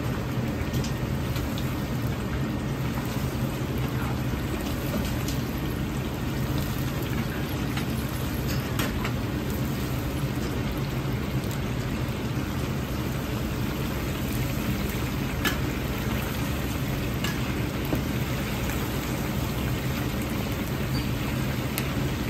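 Chicken drumsticks deep-frying in a wok full of hot oil: a steady, rain-like bubbling sizzle with scattered small pops, over a steady low hum.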